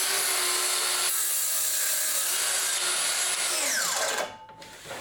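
Festool HKC 55 cordless track saw spinning up, running through a crosscut in a board, then winding down with a falling whine about four seconds in.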